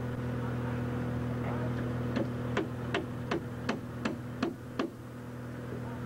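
Steady low engine hum, with a quick run of eight sharp knocks just under three a second, starting about two seconds in and stopping near the five-second mark.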